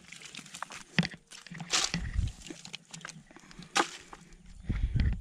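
Hands scrabbling in dry, cracked mud and handling a bucket: scattered scrapes and a few sharp knocks, with some low rumbling handling noise.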